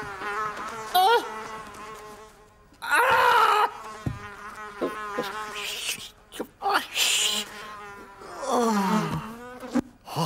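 Cartoon sound effect of a housefly buzzing, its drone swooping up and down in pitch, mixed with a man's wordless grunts and mumbles.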